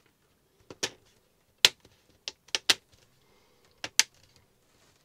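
Plastic screen bezel of an HP Chromebook 11a clipping into place as fingers press it around the lid's edge: a series of sharp clicks at irregular spacing.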